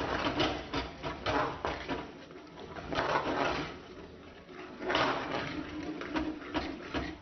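Metal spoon stirring and scraping spinach purée in a pan, a quick run of scrapes and clinks with longer strokes about three and five seconds in.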